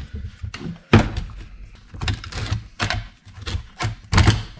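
Irregular knocks and clunks of hand tools against a metal HVAC actuator housing on a workbench as it is pried and handled for scrap. The sharpest knock comes about a second in, with a heavier pair near the end.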